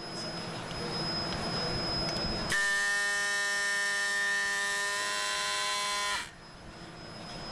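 Hands rubbing and packing moulding sand in a flask, then a loud, steady, pitched buzz starts about two and a half seconds in and cuts off sharply about a second before the end.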